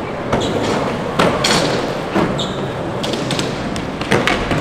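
Skateboards rolling on a skatepark floor with several sharp clacks and thuds of boards popping and landing, a few of them coming in quick pairs.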